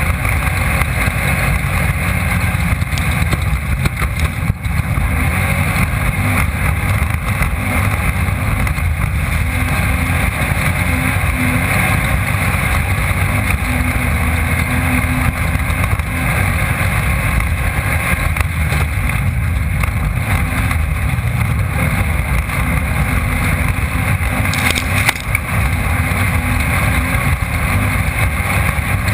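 Off-road race vehicle's engine running hard and steady at high revs, heard from on board. The sound dips briefly about twenty-five seconds in.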